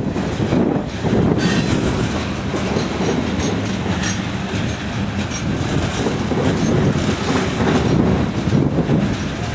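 Freight train of covered hopper cars rolling past with a steady, loud rumble of wheels on rail. Thin high wheel squeals come through between about one and five seconds in.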